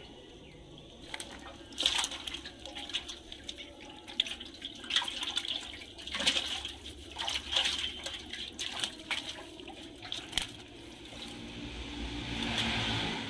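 Fish being worked free of a wet cast net by hand on concrete: irregular wet rustling, crackling and sharp slaps of fish and mesh.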